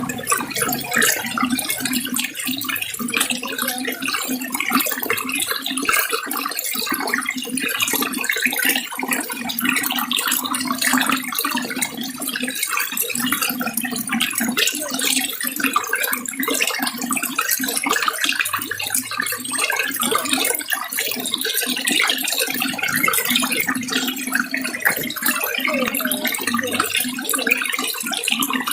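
Water running and splashing steadily, a dense patter of small splashes.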